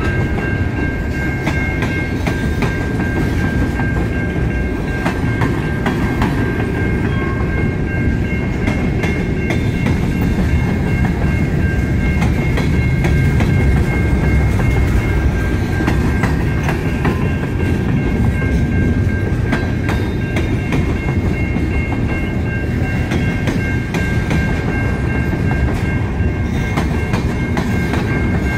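Covered hopper grain cars of a long freight train rolling past close by: a steady rumble of steel wheels on the rails with scattered clicks and clacks, and a steady high whine running over it.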